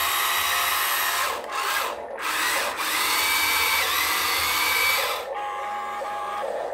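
Huina 1592 RC excavator's small electric gear motors whirring in a high whine as the upper body swings round and the arm moves. There are two short breaks about two seconds in. The whine cuts off about five seconds in, leaving a fainter steady hum.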